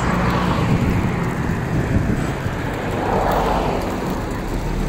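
Motor vehicle noise: a steady low rumble with two swelling whooshes, about half a second in and again about three seconds in.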